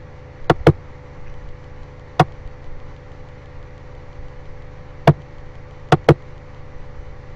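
Computer mouse clicking: a quick double click, two single clicks, then another double click, over a steady low hum.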